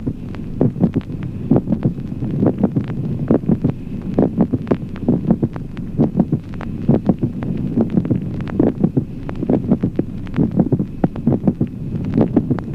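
Recorded human heart sounds beating in a steady rhythm: each beat has the first heart sound, a brief extra click about halfway through systole, and the second heart sound. This is a mid-systolic click.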